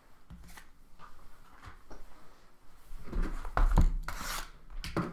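Trading cards and their foil pack wrappers being handled: card stock rubbing and scraping in short strokes, busiest and loudest about three to four seconds in.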